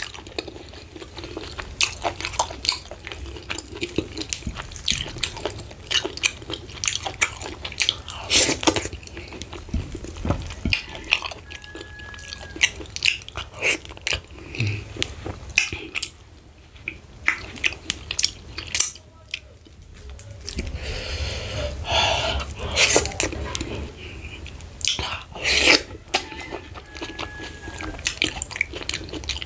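Close-miked eating sounds: wet lip smacks and chewing of fufu with ogbono soup eaten by hand, many short smacks a second.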